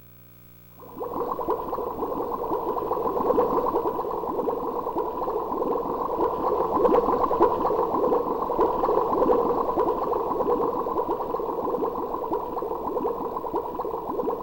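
A canned sound effect from a TJ Media WOW-7300-2 karaoke machine. It is a dense, steady crackling noise, thin and band-limited like a low-fidelity sample, that starts suddenly about a second in.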